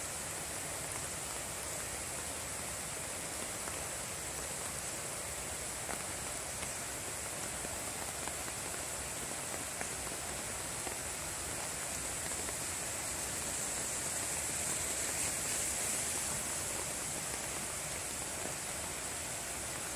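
Water rushing steadily over a low river weir and churning in the white water below it, swelling slightly about three-quarters of the way through.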